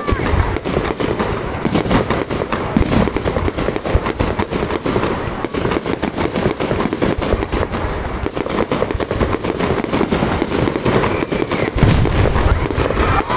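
Aerial fireworks display: a dense, continuous barrage of shell bursts and crackling, with a heavier deep boom near the end.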